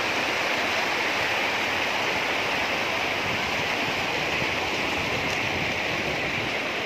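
Floodwater rushing in a fast current: a steady, even rush of water with no breaks.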